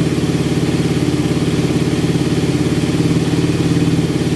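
Suzuki Raider 150 carb's single-cylinder four-stroke engine idling steadily on full choke, warming up after a cold hard start. The idle is fast and even.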